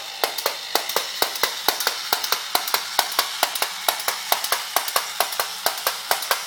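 Self-propelled tin toy tugboat running on a tile floor: its mechanism clicks rapidly and evenly, about four or five clicks a second, over a steady whirring hiss.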